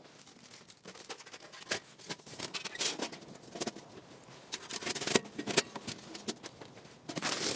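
Irregular light clicks and rustling, with a faint steady hiss underneath.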